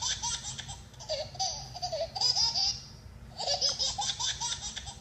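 A baby laughing in several short, high-pitched bursts of quickly pulsing laughs, with brief pauses between them.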